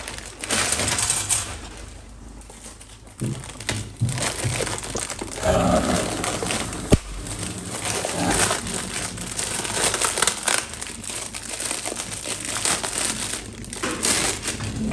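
Plastic shopping bag and clear plastic wrapping crinkling and rustling as a plastic storage basket is unpacked by hand, with one sharp click about seven seconds in.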